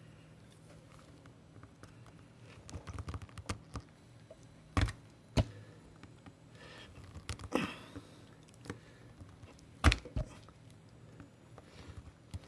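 Cheap wire cutters nipping at the plastic push-in rivets of a small encoder housing: scattered sharp clicks and snaps, the sharpest a pair about five seconds in and another pair about ten seconds in, with softer crackling and handling between.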